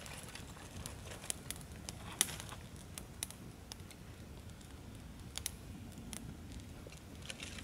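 Small campfire of thin twigs crackling, with irregular sharp pops and snaps every second or so as the kindling catches.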